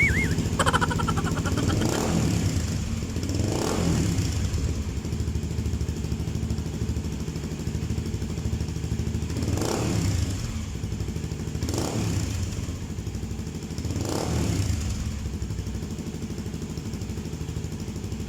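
Kawasaki Z250SL single-cylinder engine running through a replica Akrapovic slip-on muffler with its silencer insert fitted, idling and blipped five times. The exhaust note is bassy even with the silencer in.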